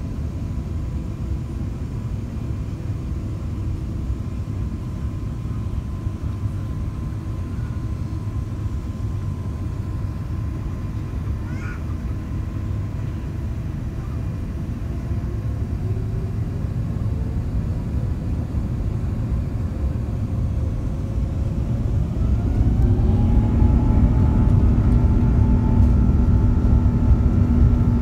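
Rolls-Royce Trent XWB-84 turbofans of an Airbus A350-941, heard from inside the cabin over the wing. They run with a steady low rumble, then from about halfway give a rising whine as they spool up for takeoff. The sound grows louder and holds steady near the end.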